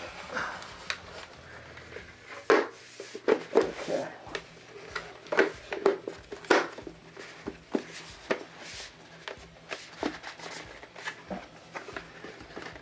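Hard plastic Legacy Red Ranger helmet being pulled on and adjusted by hand: irregular knocks, clicks and scrapes of the plastic shell against hands and head.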